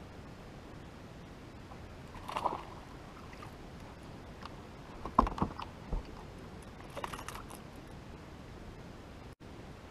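A hooked bass being landed into a bass boat: a splash at the surface about two seconds in, then a few sharp thumps on the boat about five to six seconds in, and a short rattle around seven seconds.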